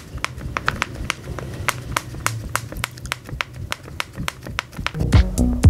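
Rapid, irregular dry crackling from a plastic snack bag tipped up to the mouth, along with crisp snack crunching.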